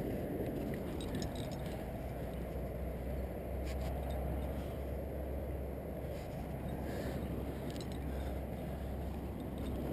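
Steady wind rumble on an action-camera microphone during a granite crack climb, with a few faint metallic clinks now and then.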